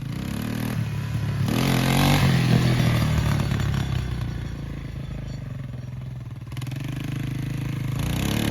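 Yamaha YTM225 three-wheeler's single-cylinder four-stroke engine running while riding, its pitch climbing as it accelerates about a second and a half in, easing off, then picking up again near the end.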